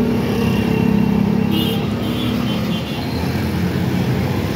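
Road traffic running close by: a vehicle engine's steady hum stands out over the general noise of a main road and eases about three seconds in.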